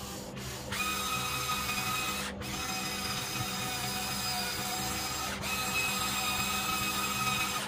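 Huina 1594 RC excavator's electric motors and gearing whining steadily as the boom and arm move, starting just under a second in and breaking off briefly twice.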